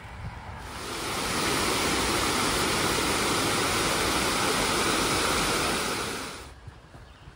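Waterfall cascading over rock slabs: a steady rush of water that fades in about a second in and fades out near the end.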